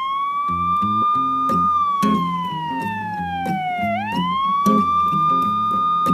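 Song intro: a siren wails, rising quickly, holding, then sliding slowly down, and rises again about two-thirds of the way through. Under it runs a repeating low bass and guitar riff with regular percussive hits.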